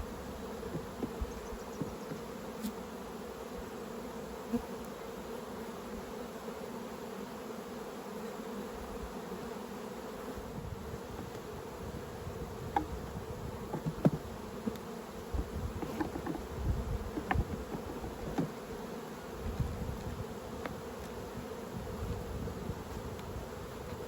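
Many honeybees buzzing steadily around open hive boxes, a continuous hum, with a few short knocks scattered through the middle of the stretch.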